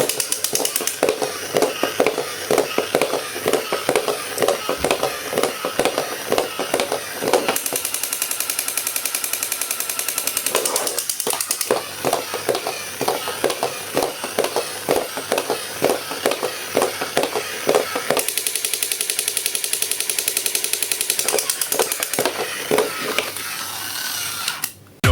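Fast, steady mechanical rattling clicks, like a small geared mechanism running, with a brief break about eleven seconds in.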